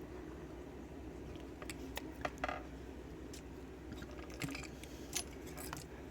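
Small metal lock parts (pins and springs from a disassembled pin-tumbler padlock) clicking and clinking lightly as they are handled, in a few scattered clusters.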